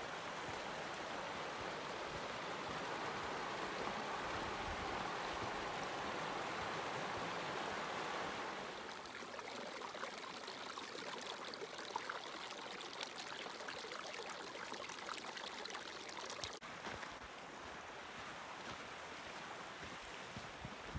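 Steady rush of the Firehole River running over rocks, louder for the first eight seconds or so and then a little quieter.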